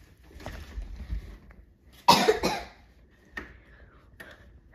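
A person coughing sharply once, about two seconds in, followed by a couple of faint clicks.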